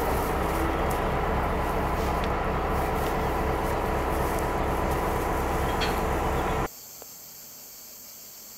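Two diesel-electric locomotives, an SŽ 664 and an HŽ 2062, idling at the head of a standing train: a steady low engine rumble with a constant tone above it. It cuts off abruptly about two-thirds of the way through, leaving a quieter steady chirring of insects.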